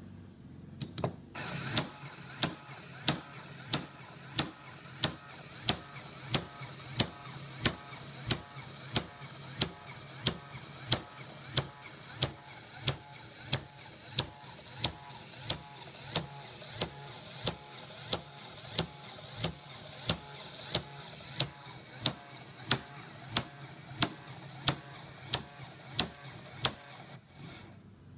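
Lego Technic automatic rubber-band gun driven by a Power Functions electric motor: the motor and gear train whir steadily, and a sharp clack comes about one and a half times a second, once per firing cycle of the mechanism. It starts about a second in and stops shortly before the end.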